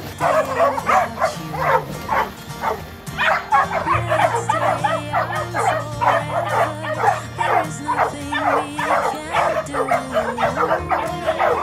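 Several dogs barking rapidly and excitedly, several barks a second with no pause, over background music with held low notes.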